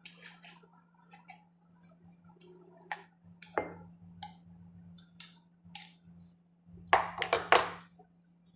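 Kitchen utensils and dishes clinking and knocking in scattered sharp clicks, with a louder, denser clatter about seven seconds in.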